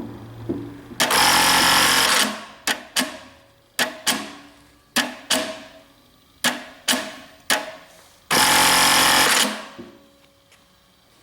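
Brother KE-430F electronic bartacking sewing machine stitching two rapid bartacks, each about a second long, with a series of separate sharp mechanical clacks between them.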